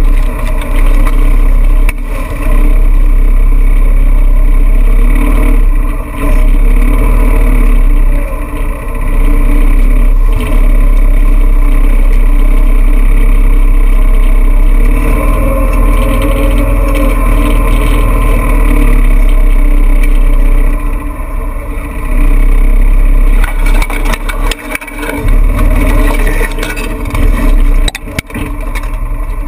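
Engine of an off-road vehicle driving through tall grass and brush, loud and rumbling, with stalks brushing against the vehicle. Near the end it slows to a stop and the sound drops.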